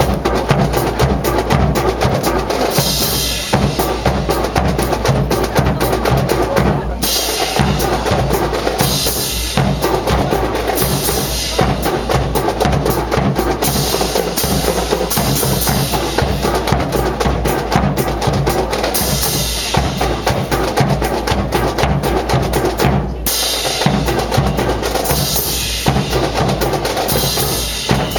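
Marching drum corps playing a continuous cadence on snare and bass drums, with rolls. It pauses briefly about a quarter of the way through and again near the end.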